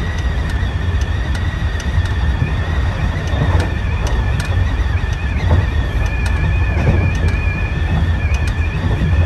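Kintetsu electric train running along the track: a steady low rumble with a high-pitched squeal held over it and light clicks of the wheels over rail joints, about one or two a second.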